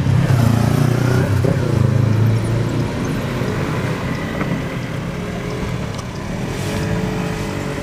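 A motor vehicle passing close by: a loud low rumble that eases off about two and a half seconds in, then a steadier, quieter engine hum.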